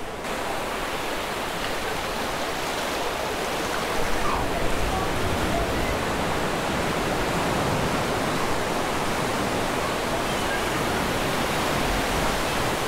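Strong ocean surf breaking, a loud steady rush of water that swells about four seconds in.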